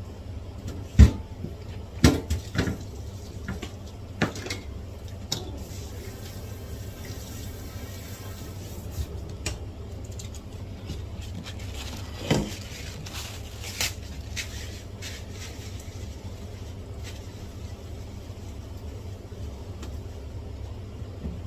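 Kitchen handling sounds while potatoes are peeled and readied: scattered knocks and clatters, the loudest about a second in, a cluster around two seconds, and another near twelve seconds, over a steady low hum.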